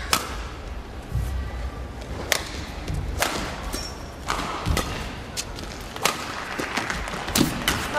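Badminton rally: a series of sharp racket hits on the shuttlecock, one every second or so, over the low murmur of an arena crowd.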